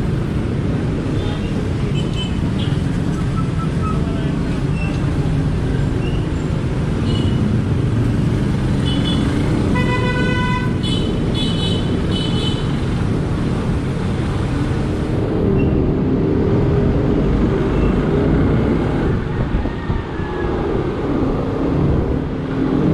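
Steady engine and road noise of a motorcycle riding in slow city traffic, with a vehicle horn honking about halfway through: one longer toot followed by a few short ones.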